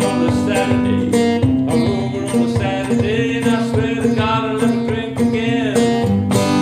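Live acoustic blues song: an acoustic guitar strummed in a steady rhythm, with a man singing over it.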